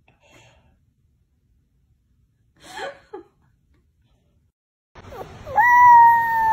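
A puppy howling: one long, steady howl that swoops up at its start and then holds, beginning in the last second over a background hiss. Earlier, about three seconds in, a brief soft whimper-like sound.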